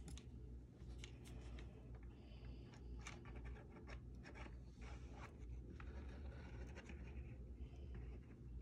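Faint scratching and small scattered clicks of fingers pressing a crocheted yarn panel down onto a wooden frame while hot-gluing its edges, over a low steady hum.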